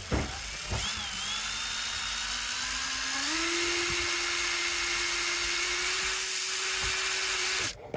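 Power drill with a magnet on its end, spinning: a steady motor whine that rises in pitch about three seconds in as the drill speeds up, holds steady, then stops just before the end.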